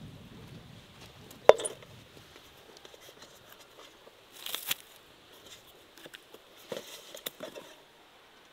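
Outdoor handling noises: a sharp knock about a second and a half in, a short rustling burst midway, and a cluster of light clicks and knocks near the end.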